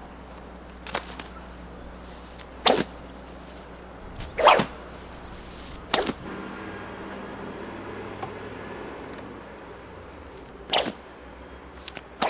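Leather bullwhip being swung and snapped, giving a string of sharp, irregularly spaced snaps a second or two apart, the loudest about three and four and a half seconds in, with a longer gap after about six seconds.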